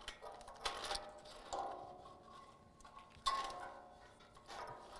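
A wiring harness and its plastic plugs knocking and scraping against a steel bumper as the harness is fed through it: a few light knocks, two of them leaving the metal ringing briefly.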